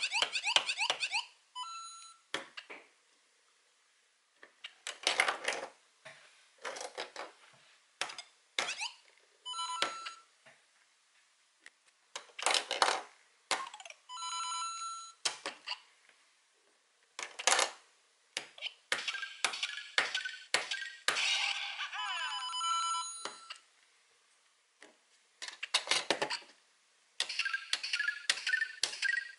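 LEGO Super Mario interactive figure's built-in speaker playing a series of short electronic game sound effects: bleeps, chimes and quick jingles. These are the figure's enemy step and defeat ('death') sounds, Dry Bones and Bowser among them. Sharp plastic clicks come in between as the figure is tapped down onto the enemy pieces, and a quick rising jingle plays near the end.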